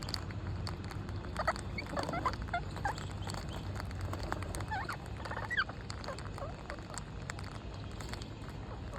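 Parrots giving short chirps and squawks, scattered and overlapping, over a steady low hum.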